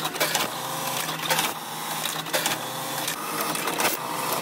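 Automatic waistband-elastic joining machine running a test cycle after repair: its sewing head stitching in short runs over a steady low hum, with irregular sharp mechanical clicks from its clamps and cutter.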